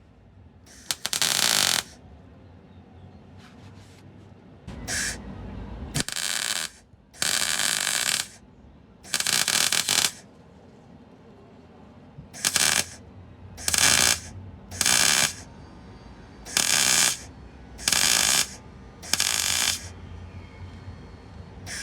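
Welding a steel repair panel to a car floor in about eleven short bursts, each a half-second to a second of crackling arc noise that starts and stops abruptly, with pauses between: the piece is being tacked and stitched in place.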